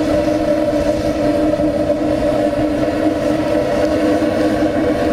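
Burner-fired stainless steel pipe heater running: a loud, steady drone with a constant hum over a low rumble, unchanging throughout.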